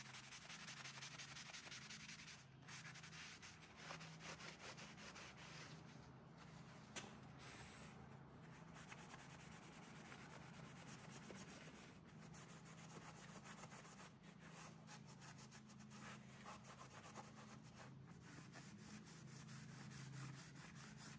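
A blue shop towel rubs and wipes over the steel jaws and body of a Vevor 6-inch milling vise, cleaning off the shipping grease. It is a faint, continuous scuffing made of many short strokes.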